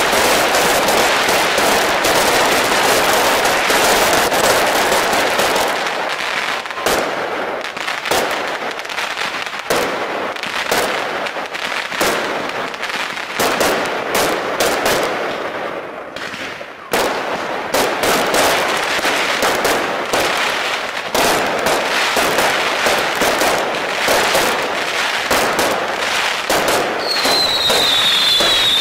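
Fireworks display: rapid sharp bangs of bursting aerial shells over a dense, continuous crackle. The crackle thins a little past the middle, where one sharp bang stands out, and near the end several high whistles slide down in pitch.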